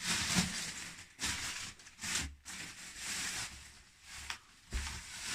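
Packing paper crinkling and rustling as it is pulled out of a cardboard parcel box, in irregular handfuls.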